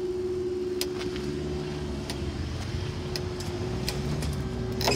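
Level crossing barriers rising, their power unit running with a steady hum that cuts off near the end as the barriers reach the top. Road vehicles run with a low rumble underneath.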